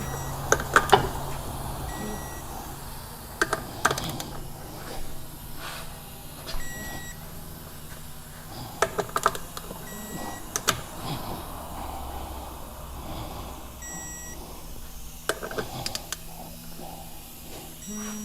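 Electric torque gun tightening beadlock ring bolts to a 15 foot-pound setting, one bolt after another: short beeps every few seconds and clusters of sharp clicks as the tool seats on and torques each bolt.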